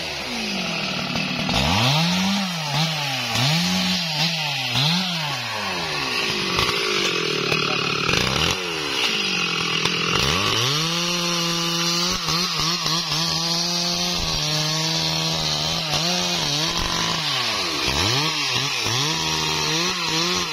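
Stihl MS 382 two-stroke chainsaw revved in several quick throttle blips, then held at a steady high pitch under load as it cuts into a large tree trunk, dipping and picking up again a few times near the end.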